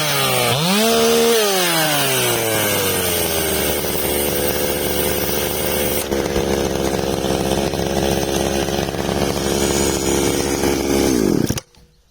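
JoBu LP5BS two-stroke chainsaw engine revved once about a second in, then falling back to a steady idle. The engine is shut off and stops suddenly near the end.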